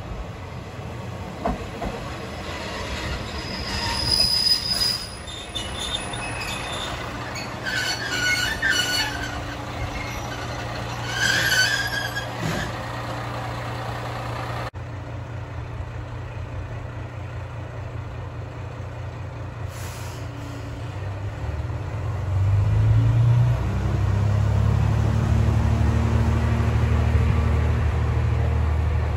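Kanto Railway Joso Line diesel railcar arriving, with several short high-pitched squeals as it slows over its low, steady engine idle. About three-quarters of the way through, the diesel engine rises in pitch and runs louder as the railcar pulls away.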